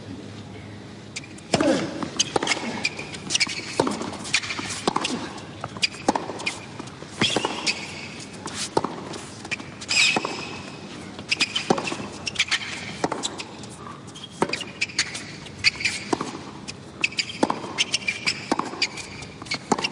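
Tennis rally on a hard court: the ball struck by rackets roughly once a second from about a second and a half in, with players' grunts among the strikes.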